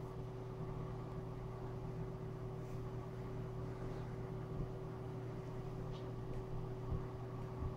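A steady low hum with a faint higher tone held above it, unchanging throughout, with a few faint soft ticks now and then.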